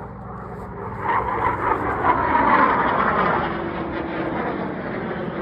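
Jet aircraft flying low overhead: a rushing roar that builds over the first couple of seconds, is loudest about two to three seconds in, then eases a little.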